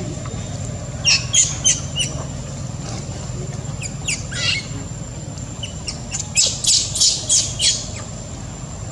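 Baby monkey squealing: short, sharp high-pitched squeaks in bursts, four close together about a second in, a couple more near the middle and a quick run of six near the end.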